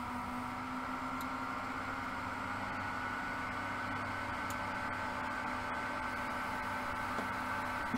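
Steady hum and hiss of a computer's cooling fans, with a few faint steady tones.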